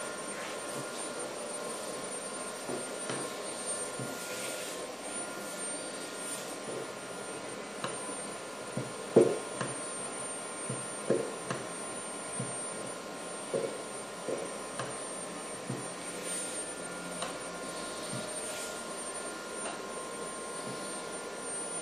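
Mitsubishi MELFA RV-3SB six-axis robot arm's servo motors running with a steady whirring hum and several high steady whines as the arm moves a pencil over paper, with scattered light taps, the loudest about nine seconds in.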